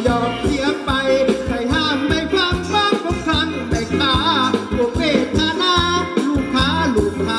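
Live Thai ramwong dance music played by a band: a quick, even drum beat under a wavering melody line.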